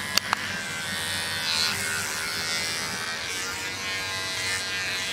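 Electric hair clipper running steadily as it trims a small child's hair. There are a couple of sharp clicks right at the start.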